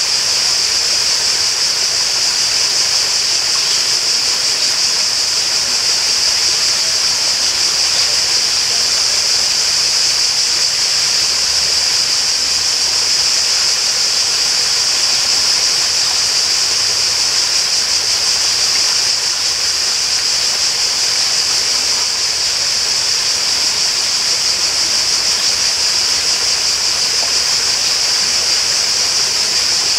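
Flowing water rushing steadily and evenly, a bright, unbroken hiss with no pauses or changes.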